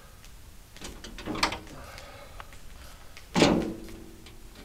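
Metal clanks and scraping as the steel blade-wheel cover of a Woodland Mills HM126 bandsaw mill is unlatched and opened. There are two clanks, the louder one about three and a half seconds in, ringing briefly.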